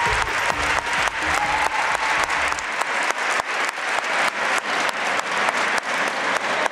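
Audience applauding, many hands clapping, as the routine's music ends about two and a half seconds in.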